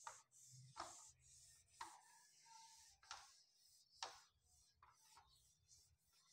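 Felt board duster wiped across a whiteboard in short strokes, each a faint brushing scrape, about one a second.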